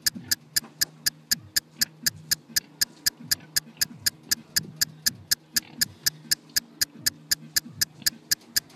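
Clock ticking, rapid and very even at about four sharp ticks a second, as a countdown sound effect.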